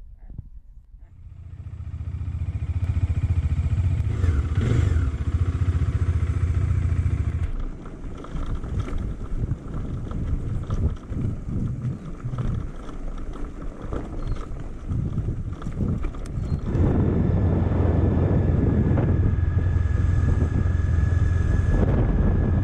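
Motorcycle running on the road, a heavy low rumble that builds up in the first couple of seconds and stays loud, drops back and turns uneven for several seconds in the middle, then comes back up strong for the last few seconds.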